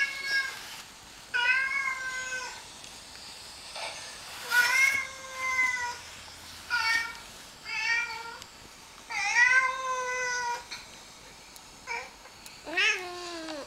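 A cat meowing over and over: about eight separate meows with short gaps between them, the longest one coming about nine to ten seconds in.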